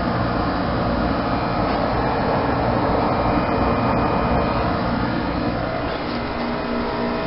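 Heat pump outdoor units running, a steady even mechanical noise with a faint hum through it.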